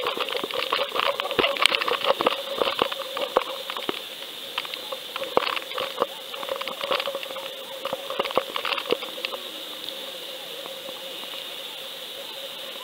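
Underwater fishing camera's recording. Irregular clicks and crackles come thick for about nine seconds as the rig and the hooked fish move, then thin out, over a steady hum.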